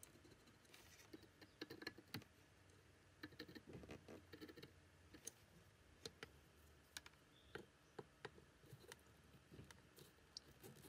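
Faint, scattered light clicks and taps of multimeter test probe tips and hands handling the metal terminals and casing of an old car horn.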